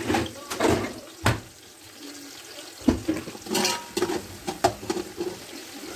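Metal slotted spoon scraping and knocking against an aluminium pot as sliced onions are stirred in oil, in uneven strokes with a few sharp knocks, over a steady watery hiss of the onions beginning to fry.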